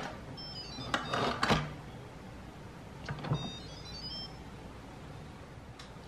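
Instant Pot pressure cooker playing its short electronic chime tune as the lid is unlocked and opened, once about half a second in and again around four seconds in, among louder clunks of the lid being twisted and lifted.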